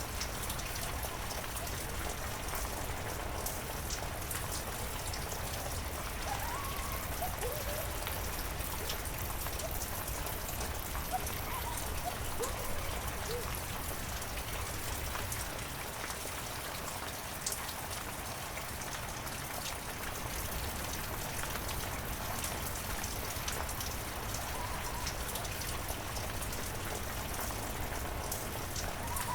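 Heavy rain falling steadily in a forest, with individual close drops ticking now and then. A few faint short rising chirps come through the rain in the first half.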